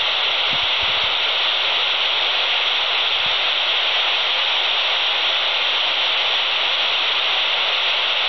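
Steady static hiss from a Quansheng TG-UV2 handheld radio's speaker, tuned to the ISS downlink on 145.800 MHz with no voice coming through.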